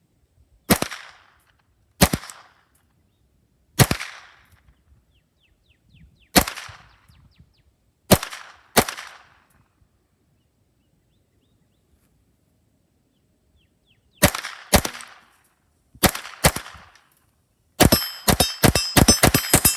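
Walther-made H&K MP5 .22 LR pistol firing single shots at an uneven pace, with a pause of several seconds in the middle. Near the end it breaks into a fast string of shots with a metallic ringing under them.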